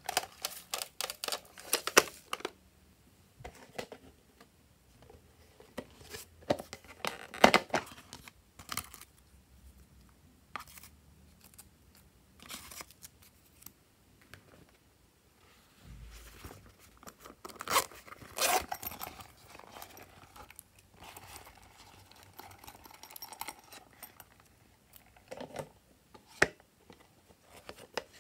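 Small hard-plastic cases being handled: scattered sharp clicks and taps of plastic, with short rustling and rattling as sequin shapes are shaken out of them.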